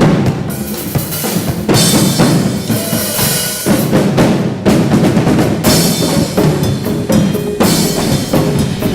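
Live percussion music: drums struck in a busy rhythm, with other instruments sounding underneath.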